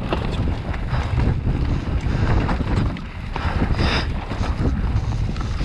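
Wind rushing over the microphone of a bike-mounted action camera during a mountain bike descent, a steady low rumble, with short knocks and rattles from the bike running over rough, dry trail.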